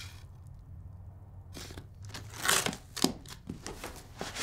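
Cardboard shipping box being opened: packing rustling and crinkling in several short bursts, starting about a second and a half in.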